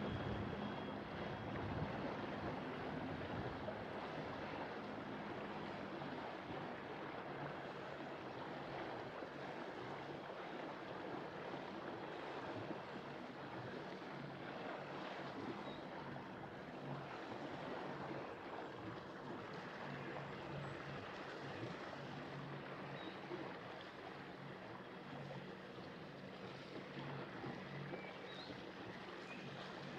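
Motor yacht under way, its engine a steady low hum under the rush of water along the hull and some wind noise.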